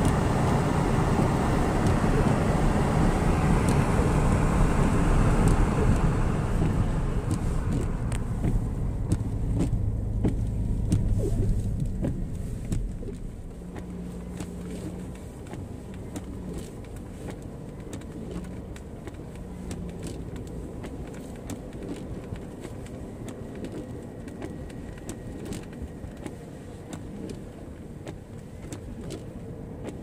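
Car driving on a snow-covered road, heard from inside the cabin: steady road and engine noise, loud at first, then dropping off about twelve seconds in, with faint scattered clicks and knocks after.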